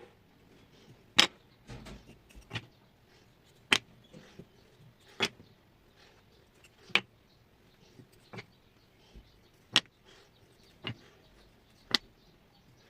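A series of sharp knocks or clicks: about seven loud ones irregularly spaced one to three seconds apart, with fainter clicks between them.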